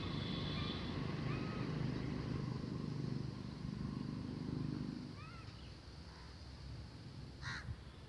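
Low rumble of passing traffic that fades out about five seconds in. Then come a few short rising bird chirps, and one harsh bird call near the end.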